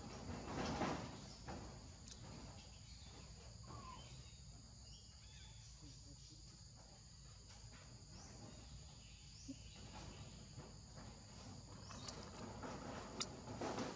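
Insects droning steadily at a few high pitches over a low outdoor rumble, with a brief rustle about a second in and a few faint clicks near the end.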